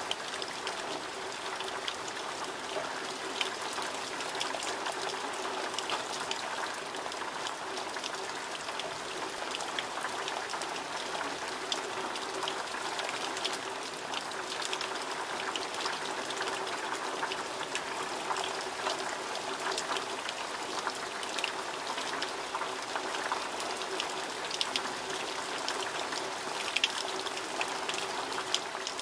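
Heavy rain falling steadily, a dense even hiss with frequent sharp ticks of drops striking close surfaces.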